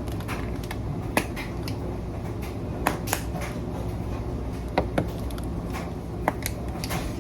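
Scattered sharp clicks and taps from spice containers being handled while seasoning is sprinkled, some coming in quick pairs, over a steady low hum.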